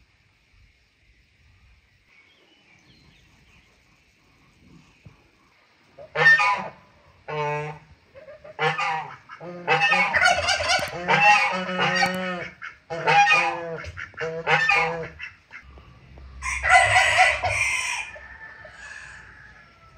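Domestic geese honking in a run of repeated loud calls, followed near the end by a rooster crowing once.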